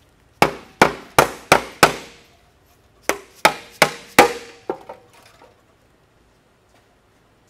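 A soft-faced mallet knocks the stamped-steel valve cover of a Ford 289 V8 to break its gasket seal: five quick blows, a pause, then four more, each with a short metallic ring. It ends in a few lighter knocks and a rattle as the cover comes loose.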